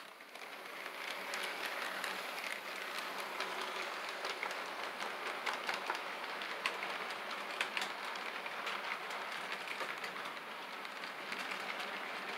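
HO scale model freight train running past close by: a steady rattle of wheels on the track, with many sharp clicks over rail joints. It rises from quiet within the first second or two as the locomotive arrives, then holds steady as the freight cars roll past.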